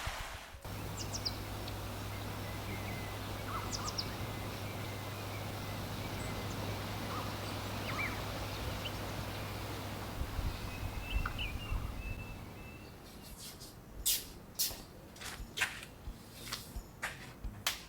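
Birds chirping in short scattered calls over a steady low hum. From about thirteen seconds in, the hum fades and a quick run of sharp clicks and knocks takes over.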